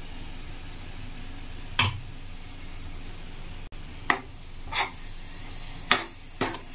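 Metal spatula knocking and scraping against a steel kadhai as tomato puree is stirred into frying onion masala: five sharp clacks over a low, steady sizzle.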